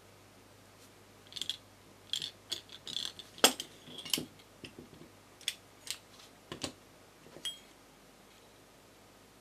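Metal garlic press being handled as clay is loaded and squeezed through it: about a dozen irregular sharp clicks and clinks of its hinged handles and plate knocking together, the loudest about three and a half seconds in.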